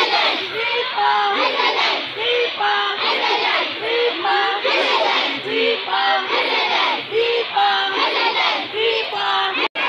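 A large group of schoolgirls singing or chanting together as they march, a short phrase with held notes repeated about every second and a half. The sound drops out for an instant just before the end.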